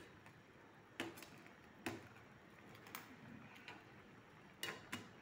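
Metal slotted spatula tapping and clicking against a nonstick pan while stirring crab in coconut milk: a handful of sharp, irregularly spaced taps.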